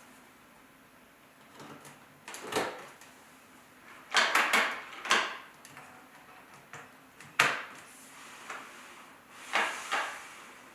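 A series of sharp mechanical clicks and knocks from equipment controls being worked by hand, about half a dozen in all, some in quick pairs.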